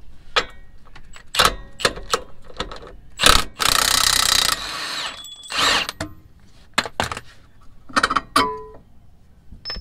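Milwaukee M18 Fuel cordless impact wrench hammering for about a second to loosen the lower mounting bolt of a truck's front shock absorber. Metal clicks and clinks of the socket and hardware come before and after it.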